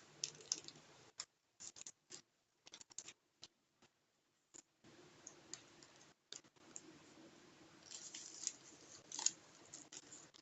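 A metal spoon scooping borax and scraping and tapping against a container: a scattered series of faint short clicks and scrapes.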